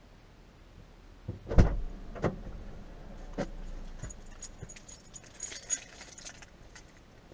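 Gear handled at an open car door: a few knocks and thumps against the vehicle, the loudest about a second and a half in, then small metal items jingling for a second or so past the middle.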